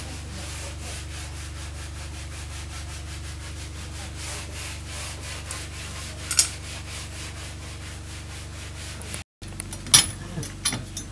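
A steady low hum with a fast, even pulse, a sharp click about six seconds in, and a few metallic clicks and knocks near the end as the turbine's rotor disc and its jacking studs are handled.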